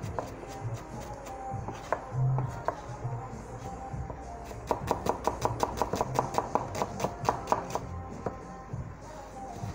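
Chef's knife chopping red onion on a cutting board: scattered single chops at first, then about halfway through a fast, even run of about six chops a second for some three seconds. Music plays underneath.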